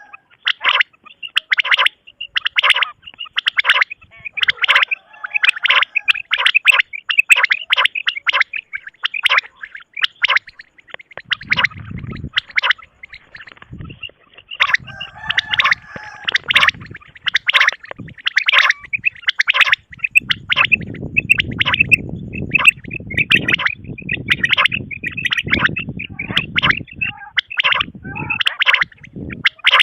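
Quail (batair) calling: rapid runs of short, sharp, high calls, several a second, broken by brief pauses. Low rumbling noise joins in around the middle and through much of the second half.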